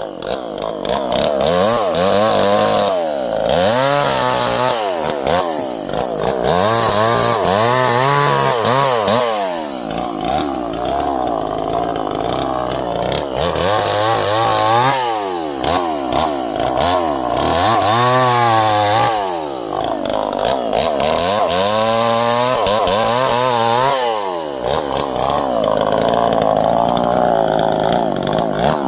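Chainsaw running and cutting wood, its engine pitch repeatedly rising and falling every few seconds as it is throttled up and eased off.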